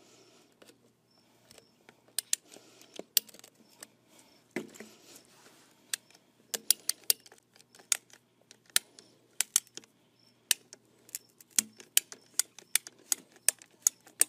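Hand-held PVC pipe cutter clicking as its handles are squeezed again and again to cut through a PVC pipe. The clicks are sharp and sparse at first, then come about two a second from about six seconds in.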